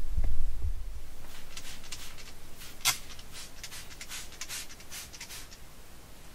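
Handling noise: a heavy low rumble in the first second, then a string of short dry rustles and scrapes, with one sharper click about three seconds in.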